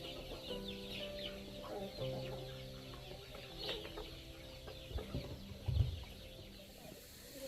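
Chickens clucking, with background music of held notes that change pitch. A couple of dull low thumps come about five and six seconds in.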